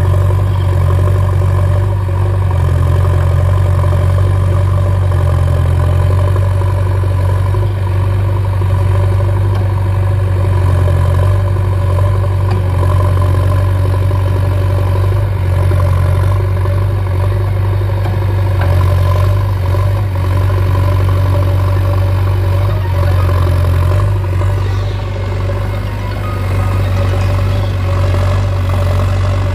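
Diesel engine of a JCB backhoe loader running steadily, a deep, even hum with a slight dip in loudness near the end.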